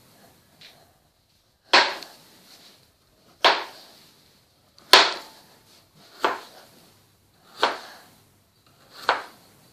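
Kitchen knife slicing a raw peeled potato into thin slices, the blade knocking down onto the cutting board six times, about one cut every one and a half seconds.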